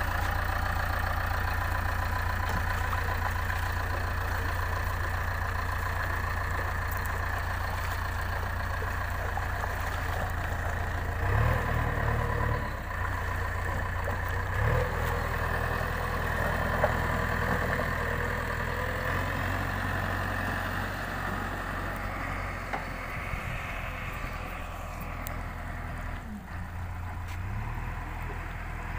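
JCB 3DX backhoe loader's diesel engine running steadily, with a couple of brief revs about a third and about halfway through.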